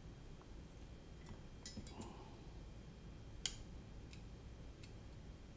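A few faint clicks and taps of metal tweezers and small parts being handled on a drone frame, with one sharper click about three and a half seconds in.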